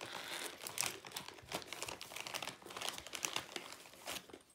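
Plastic snack bag of rice chips crinkling and rustling as a hand rummages inside it for a chip; the crackling dies away near the end.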